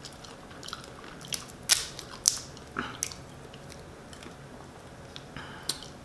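Boiled crawfish shells cracking and snapping as they are twisted and peeled by hand: a handful of short, sharp cracks spread over several seconds.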